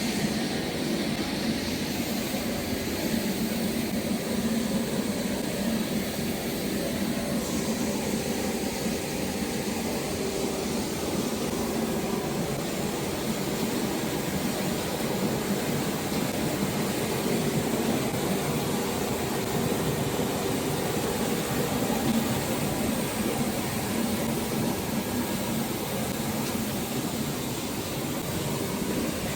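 Chirata grinder machine with a double cyclone blower running, a steady even whirring with a low hum.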